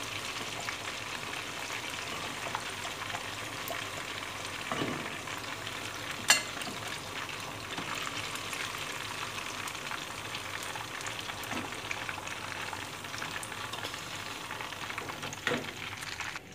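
Chicken pieces deep-frying in hot oil with a steady sizzle, while a metal slotted skimmer stirs and lifts them out. One sharp clink of the skimmer against the pan about six seconds in is the loudest sound, with a few softer knocks.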